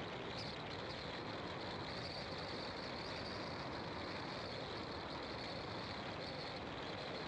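Car driving steadily along an asphalt road: even tyre and wind noise, with a constant high hiss running through it.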